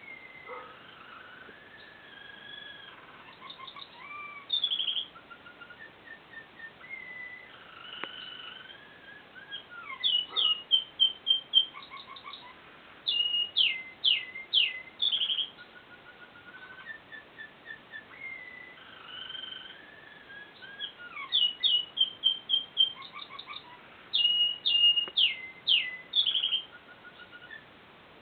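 Male American Singer canary singing a long song of whistled notes, rolling trills and runs of loud, fast downward-sweeping notes; the song's sequence of phrases starts over about halfway through.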